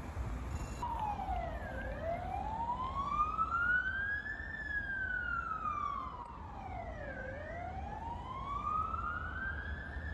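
A street siren wailing, starting about a second in and sliding slowly down and up twice in pitch, over the low rumble of city traffic.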